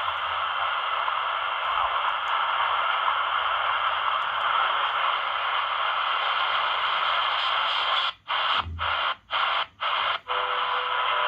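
Shortwave static hissing from the Hanrongda HRD-747 receiver's speaker while it is tuned to WWV's 15 MHz frequency, with no clear signal coming through. Near the end the hiss cuts out five times in quick succession as the receiver is stepped down one megahertz at a time. A faint steady tone comes in on the new frequency.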